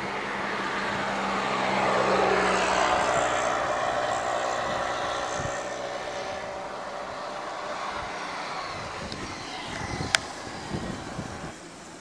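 A motor vehicle passing on the road, its engine and tyre noise swelling over the first two or three seconds, then slowly fading. A short sharp click about ten seconds in.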